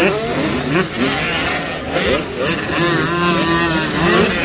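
Two-stroke 85 cc motocross bike engine revving hard, its pitch sweeping up and dropping back again and again with throttle and gear changes. It holds a steady pitch for about a second past the middle.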